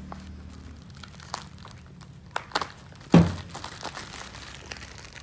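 Scattered crinkling and small cracking clicks from food being handled at a table, with one loud thump about three seconds in.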